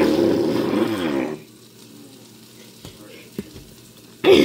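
A loud, buzzy fart noise lasting about a second and a half, wavering in pitch, followed near the end by a brief vocal sound.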